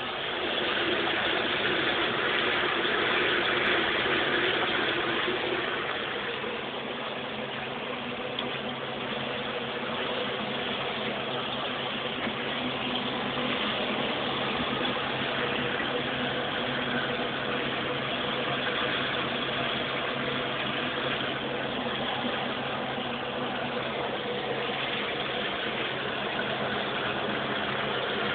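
A motor running steadily: a constant hum with a rushing hiss over it, a little louder in the first few seconds.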